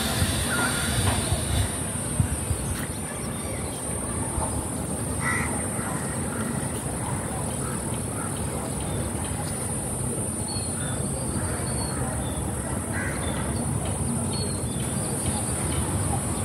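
Outdoor ambience: scattered short bird calls over a steady low rumble and a constant high-pitched hiss.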